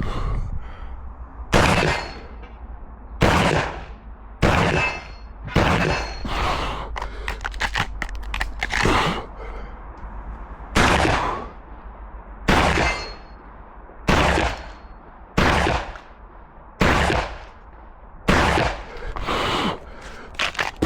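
Shotgun shots fired one at a time, about fourteen of them, each a loud sharp report with a short echoing tail, roughly one every one to two seconds with a slightly longer gap about eight seconds in.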